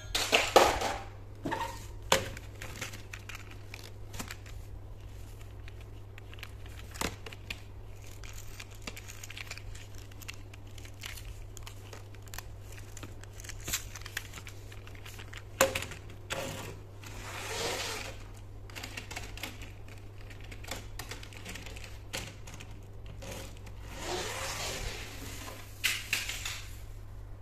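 Small plastic toy trains handled and fitted together by gloved hands: scattered plastic clicks and knocks, with a few longer rustles, over a steady low hum.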